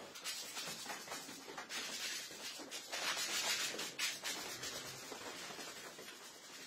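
Rubber squeegee scraping and swishing over wet, soapy floor tiles in irregular strokes.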